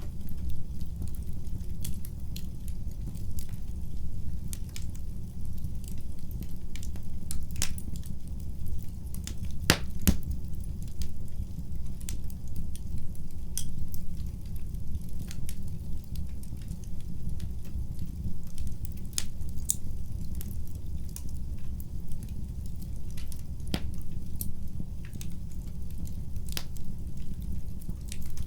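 Wood fire burning in a fireplace: a steady low rumble of the flames with scattered sharp crackles and pops from the burning logs, a couple of louder snaps about eight and ten seconds in.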